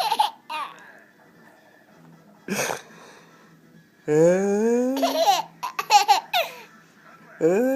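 Young children laughing in bursts at a pretend sneeze, with a quiet gap between bursts. Near the end a drawn-out, rising "aaah" begins the next mock sneeze.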